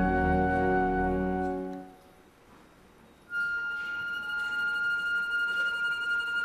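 Pit orchestra's held chord dying away, a moment's near silence, then one high note sustained quietly, like a lone violin or a synthesizer tone.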